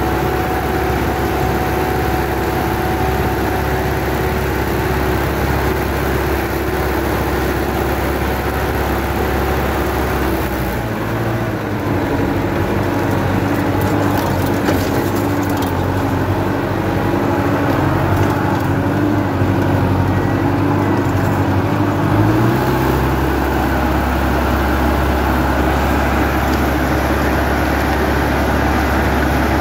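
Sonalika 75 HP tractor engine running under load as it drives a 4-foot rotavator through the soil, heard from the driver's seat. For about ten seconds in the middle the deep rumble drops away and the engine note shifts, then the steady working sound returns.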